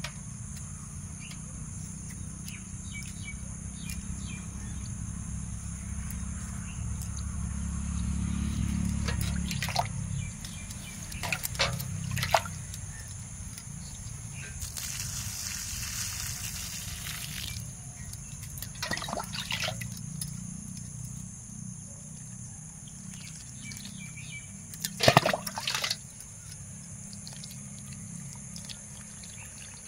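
Water poured from a small clay cup onto loose soil around a sapling, trickling and splashing, with a few sharp knocks and a brief louder clatter near the end.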